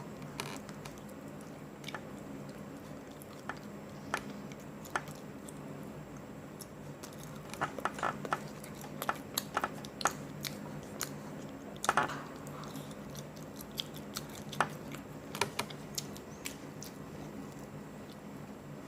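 A person biting and chewing crispy hot and spicy chicken up close: irregular wet crunches and mouth sounds, thickest in the middle stretch. A steady low hum runs underneath.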